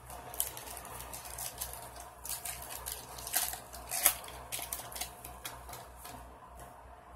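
Foil trading-card pack wrapper crinkling and tearing as it is peeled open and the cards are slid out, with the sharpest crackles about three and a half and four seconds in.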